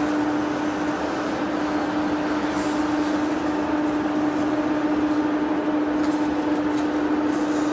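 A heavy floor-type lathe running: a steady machine hum with one constant tone over an even mechanical noise, unchanging throughout.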